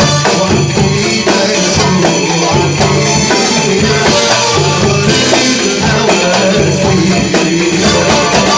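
Live Egyptian belly-dance band music: a goblet drum (darbuka) and percussion keeping a steady rhythm under keyboard and qanun.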